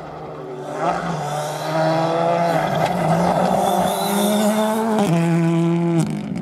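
Rally car engine at high revs approaching at speed, its pitch rising and dipping with gear changes and throttle. The sound changes abruptly about five seconds in and again about six seconds in, where the footage is cut to another car.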